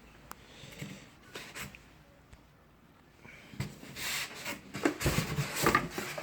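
Packaging and parts being handled during an unboxing: a few faint clicks, then irregular rustling and scraping from about three and a half seconds in, loudest near the end.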